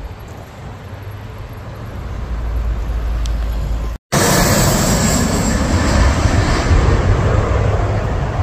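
Twin-engine regional jet on final approach, gear down, passing low overhead: jet engine noise builds over the first few seconds, drops out for a moment about four seconds in, then comes back loud and eases slightly near the end.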